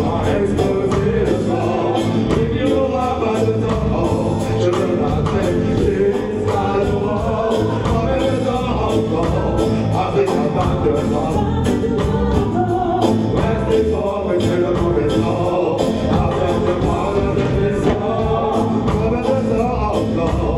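Live reggae band playing: drums, electric guitar and keyboard, with a male lead singer and backing vocalists singing over a steady beat.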